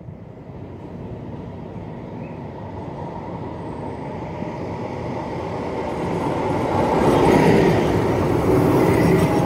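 A tram approaching along its track and passing close by, its running noise growing steadily louder to its loudest about seven seconds in, with a steady whine.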